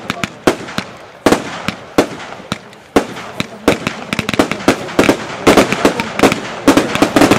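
Firework battery firing shot after shot: sharp bangs of launches and bursting stars, a few spaced out at first, then coming much faster and louder from about three seconds in.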